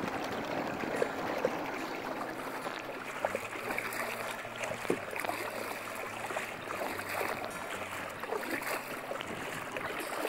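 Kayak paddle strokes: the blades dipping and splashing in the water, over a steady run of water noise with many small splashes and drips.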